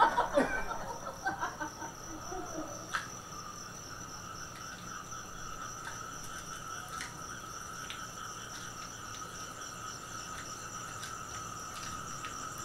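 A steady chorus of insects, an even unbroken trilling in one high band with a fainter, higher one above it. Voices and laughter fade out in the first two seconds or so.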